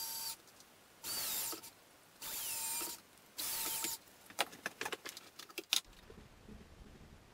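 A DeWalt cordless drill running into the wood of a table rail in short bursts of under a second, four times about a second apart, its motor whining. A quick run of small clicks and knocks follows.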